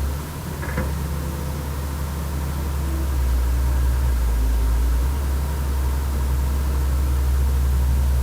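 Heavy diesel engine running steadily with a deep drone, growing a little louder about three seconds in.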